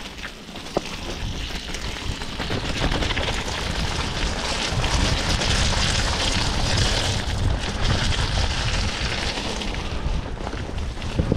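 Rushing wind and low rumble of a moving vehicle, with wind buffeting the microphone, growing louder over the first five seconds or so.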